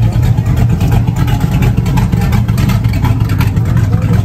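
Classic car's engine idling with a loud, deep exhaust rumble.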